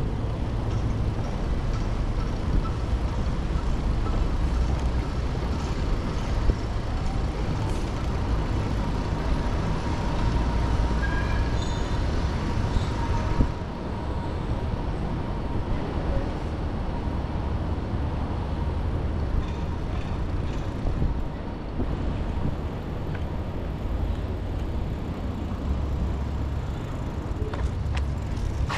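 Steady low rumble of wind buffeting the microphone on a moving bicycle, over a hum of road traffic.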